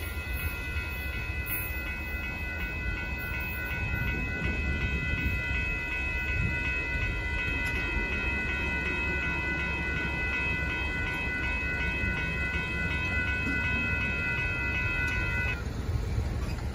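Railroad crossing warning bells ringing steadily over the low rumble of the train, the bells stopping suddenly near the end as the crossing gates go up.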